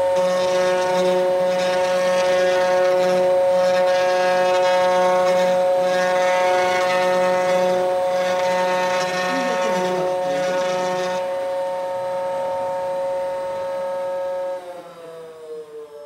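Desktop CNC router's spindle running with a steady high-pitched whine, joined by a rougher pulsing noise until about eleven seconds in. Near the end the whine drops in pitch and fades as the spindle spins down.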